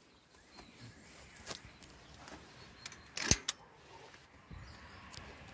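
Camera handling noise over a faint outdoor background: scattered clicks and knocks, the sharpest and loudest about three seconds in. No engine is running yet.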